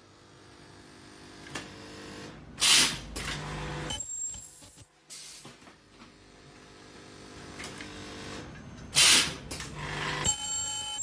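Carbon-granule filling and ultrasonic welding machine for masks running through its cycle: a steady machine hum that slowly builds, broken twice, about six seconds apart, by a short loud burst of hiss.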